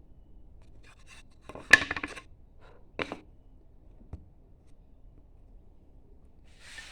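Hand carving tool cutting into wood: a few short, sharp cuts, the loudest about two seconds in, then others near three and four seconds, and a brief scrape near the end.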